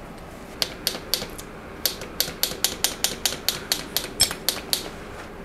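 Sharp mechanical clicking from the bicycle being worked on: three separate clicks, then a steady run of clicks at about four a second for roughly three seconds, stopping before the end.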